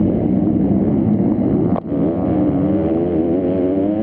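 Motocross bike engine, heard on board, revving up and down as it is ridden hard, with a brief break just under two seconds in.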